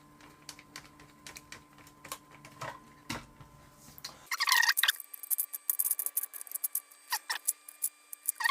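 Light clicks and taps from small plastic parts being handled. From about four seconds in come louder scrapes and squeaky rubbing, and a low background hum stops at the same moment.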